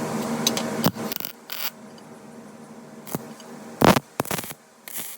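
A steady machine hum that cuts off about a second in, followed by scattered short scrapes and knocks, the loudest about four seconds in.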